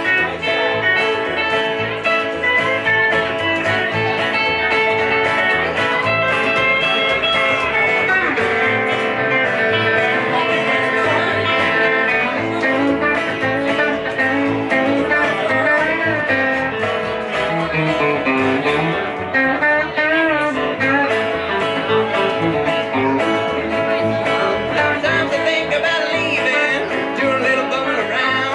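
Live band music from electric guitar, upright double bass and acoustic guitar playing a song, with bending guitar notes and no breaks.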